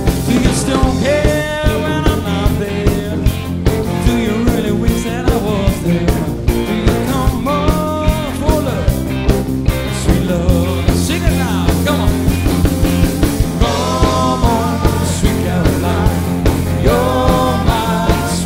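A rock band playing: a steady drum beat of about two hits a second with electric guitar and bass guitar, and a male voice singing phrases over it.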